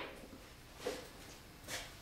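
Quiet garage room tone with two faint, brief knocks, about a second apart.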